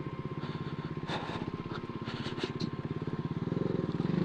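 Street motorcycle's engine running steadily at low speed in second gear, with a few light clicks. The rider is holding second gear because he says first gear jams and slips.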